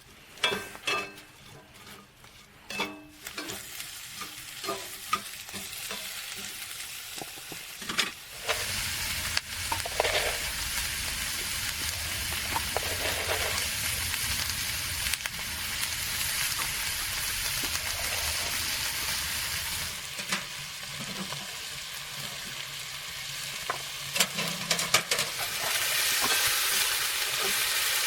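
Food frying in a pan on a stove: scattered knocks and clicks for the first few seconds, then a steady sizzle with crackling from about eight seconds in.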